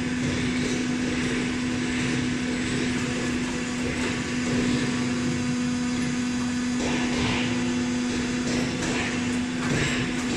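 Forging manipulator's hydraulic drive running with a steady hum and drone as its tong arm moves, with a couple of brief swells of noise.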